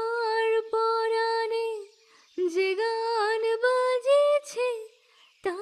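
A woman's solo voice singing a slow melody in long held notes, in phrases with short breaks between them.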